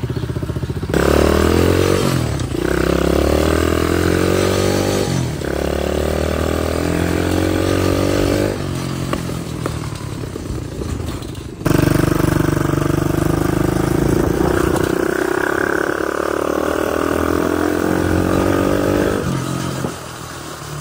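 A 125cc dirt bike's engine accelerating through the gears: its pitch climbs steeply, drops at each shift and climbs again, three times over, then it runs at a steadier speed and eases off near the end.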